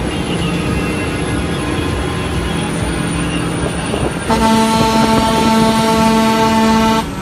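Kenworth W900L's Cummins N14 diesel running as the truck drives, heard inside the cab. About four seconds in, the truck's air horn sounds one long, steady, loud blast of nearly three seconds, which cuts off sharply.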